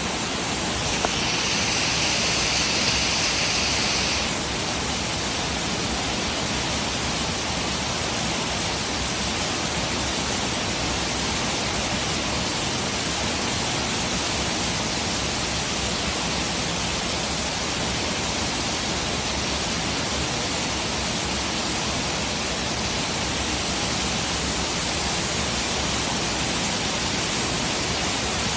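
Steady rain, an even hiss with no pauses, which turns brighter and slightly louder for about three seconds near the start.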